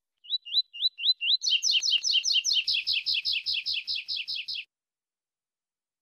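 Coleiro seedeater singing: a few rising whistled notes, then a fast, even run of repeated notes that stops abruptly.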